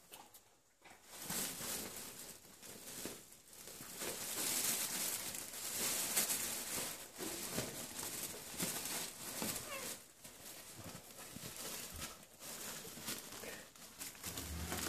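Fabric pet play tunnel rustling and crinkling on and off as a dachshund puppy and kittens scuffle in and around it.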